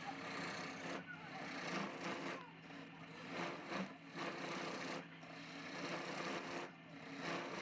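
Wood lathe running with a steady motor hum while a turning tool or abrasive is worked against the spinning wood. It makes a rough scraping rasp in repeated passes of about two seconds each, with short breaks between them.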